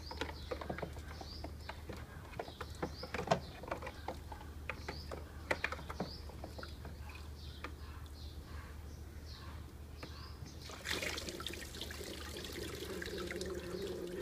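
Small plastic knocks and splashes of a child's hands and a plastic tray in a toy water table, with birds chirping. About eleven seconds in, water starts pouring from the tray into the table's funnel and keeps trickling down.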